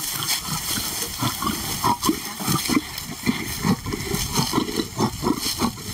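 Lions growling over meat: a male warning off a lioness from his food, with short rough growls coming a few times a second.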